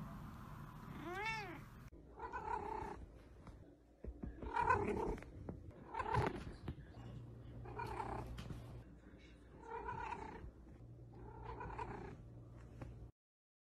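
A calico kitten meowing over and over, about one call every second or so, after a single short rising-and-falling call about a second in. The calls stop abruptly near the end.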